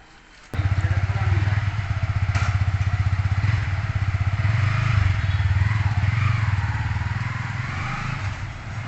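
Yamaha R15 V3's single-cylinder 155 cc engine running close by: a loud, steady, rapidly pulsing low exhaust note that starts abruptly about half a second in and eases off slightly near the end.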